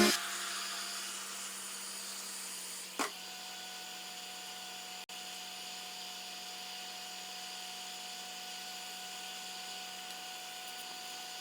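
A steady electric hum with a thin whine, and one short knock about three seconds in.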